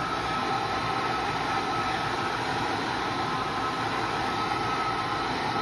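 Gas ribbon burner of a neon glass-bending bench burning steadily, a constant rushing noise with a faint steady tone, as a glass tube is heated in its flame.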